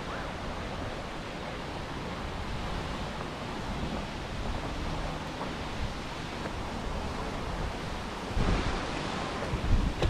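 Steady rushing noise, with a louder low rumble from about eight and a half seconds in.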